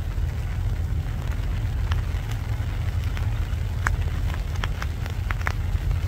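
Spring rain falling, with scattered sharp raindrop ticks, several of them close together in the second half, over a steady low rumble.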